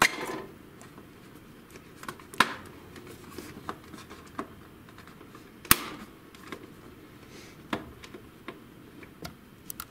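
Plastic latches on an HP Smart Tank 513 printer's housing being pushed in with a thin metal tool: a handful of separate sharp clicks and taps, the loudest a little past halfway.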